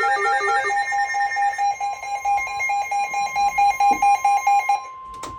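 Several weather alert radios alerting together. One gives a fast, even electronic beeping alarm that stops shortly before the end, and another plays a stepped electronic melody that stops about a second and a half in. About two seconds in, a steady single tone joins them: the NOAA Weather Radio 1050 Hz warning alarm tone. A sharp click comes near the end.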